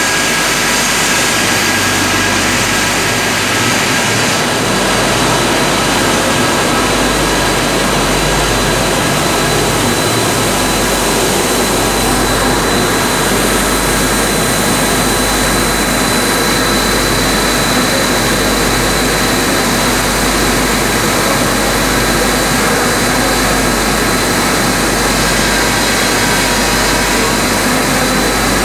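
Running extrusion line with take-up winders and blowers: a loud, steady machine noise with a thin, high whine held over it.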